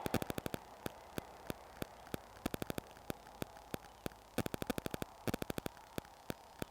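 A long run of faint, sharp clicks and ticks at irregular spacing, some bunched in quick runs, over a faint steady hum.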